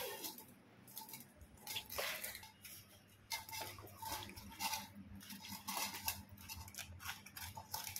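Cows eating feed from steel bowls: irregular small clinks and scrapes as their muzzles work against the metal.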